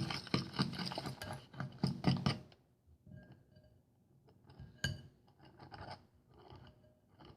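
A mixing utensil scraping and clinking against a bowl as shaving-cream slime mixture is stirred. The scraping is dense for about the first two and a half seconds, then gives way to a few light taps, with one sharper clink about five seconds in.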